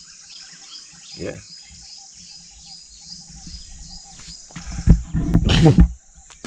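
Insects chirping in a fast, even train of high-pitched pulses, with a shorter, lower pulsed call for a couple of seconds. Near the end a loud rumbling noise covers them.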